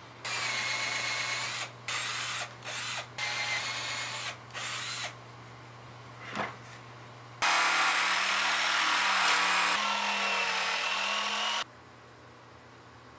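Power drill boring starter holes through a maple board in about five short bursts, then a jigsaw running steadily for about four seconds as it roughs out the circular cutouts.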